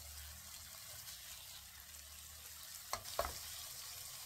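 Faint sizzle of chicken and masala gravy cooking in a nonstick wok, with two short knocks of the spatula against the pan about three seconds in.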